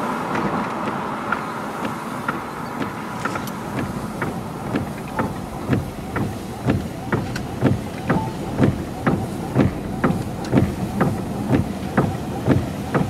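Car driving at road speed, its tyres thumping over evenly spaced joints or patches in the pavement: about one thump a second at first, then quickening to about two a second and getting louder.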